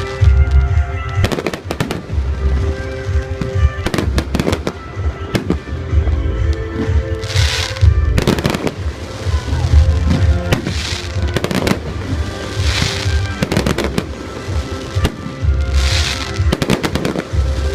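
Fireworks display: aerial shells banging in quick, irregular succession with heavy low booms. Several bursts are followed by a hissing, crackling shower lasting about a second. Music plays underneath.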